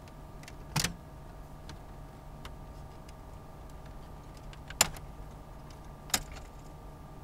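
Three short, sharp plastic clicks, one about a second in and two near the end, as the silver radio trim frame of a Skoda Octavia dashboard is pried and pulled from its clips, over a steady faint hum.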